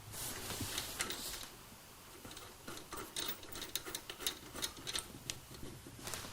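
Hand-tool work on a go-kart engine mount: a brief scraping noise at the start, then irregular light clicks and taps, several a second, from about two and a half seconds in.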